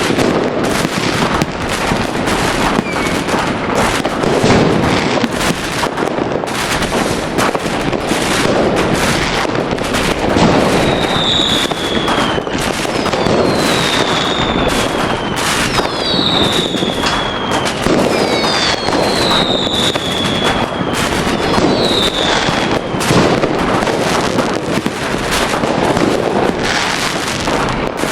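Fireworks going off in a dense barrage: continuous rapid bangs and crackling. Through the middle come several high whistles, each falling in pitch.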